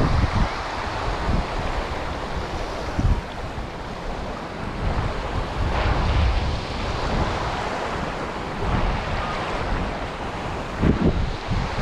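Sea surf washing on the beach with wind buffeting the microphone in irregular low gusts, strongest about three, six and eleven seconds in.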